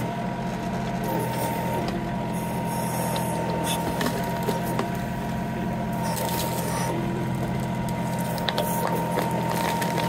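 Compact tractor diesel engine running steadily under load while the backhoe hydraulics pull a stump back and up, with a steady high whine over the engine and a few short cracks.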